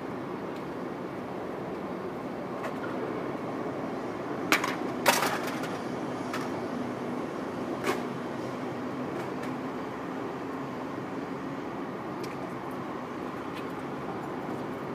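Steady rumble of distant road traffic, broken by three sharp cracks: two in quick succession about a third of the way in and one more a few seconds later.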